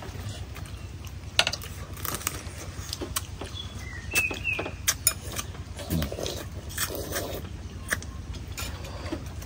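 Table eating noises: chopsticks and spoons clicking and clinking against ceramic soup bowls in scattered, irregular taps, over a steady low background hum. A brief bird chirp about four seconds in.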